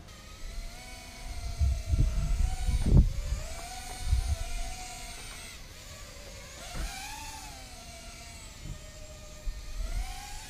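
Walkera Rodeo 110 mini quadcopter's brushless motors and small props whining in flight, the pitch rising and falling with the throttle. The pilot puts this slightly unusual noise down to the size of the props and motors. Gusts of wind rumble on the microphone, loudest about three seconds in.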